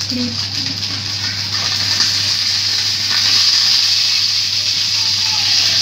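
Whole fish frying in hot oil in a nonstick pan: a steady sizzle that grows louder about three seconds in, as the fish is turned over with a wooden spatula.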